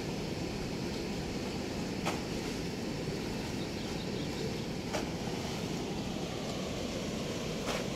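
Steady rushing of water pouring through a sluice gate, a low, even noise, with three faint clicks, about two, five and nearly eight seconds in.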